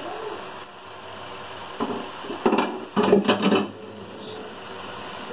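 Paneer tikka pieces coated in a curd and chutney marinade frying in oil in a nonstick pan, a steady sizzle, with louder clattering in the middle.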